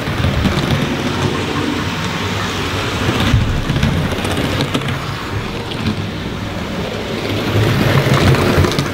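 OO gauge model steam locomotive's motor and wheels running along the track over a plywood baseboard: a steady, noisy rumble that grows louder about eight seconds in.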